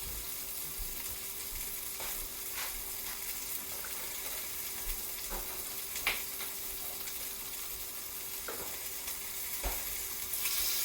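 Food sizzling steadily in a frying pan, with a few faint clicks and a low steady hum underneath.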